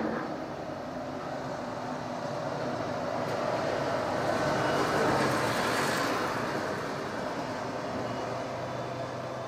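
A large road or rail vehicle passing along the street. Its noise swells to a peak about five seconds in and then fades away.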